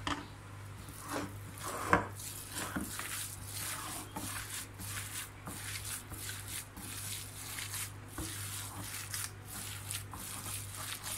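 Hands kneading and squeezing minced-meat seekh kabab mixture in a glass bowl: a wet squishing and rubbing repeated a few times a second, starting about two seconds in. A sharp knock comes just before the kneading starts, and a steady low hum runs underneath.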